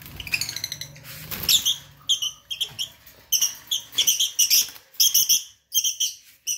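Lovebirds chirping: quick groups of short, sharp, high-pitched chirps, densest in the second half.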